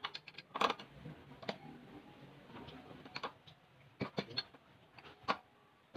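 Irregular sharp clicks and knocks of a pipe wrench gripping and turning a threaded fitting on a water pump, about seven in all, the loudest about half a second in.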